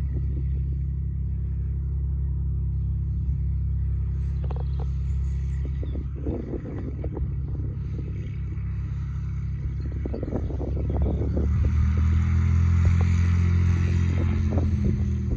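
A steady low engine drone that grows louder about twelve seconds in.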